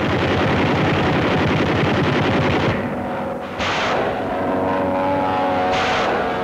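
Rapid aircraft machine-gun fire for the first two and a half seconds, then an aircraft engine drone with a steady pitch, broken by two short bursts of fire.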